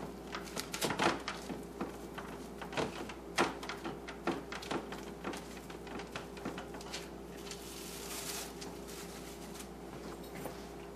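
Plastic wrap crinkling and rustling under hands pressing cracker dough flat on a parchment-lined sheet pan, in many small irregular crackles. Near the end a longer rustle as the wrap is pulled off the dough.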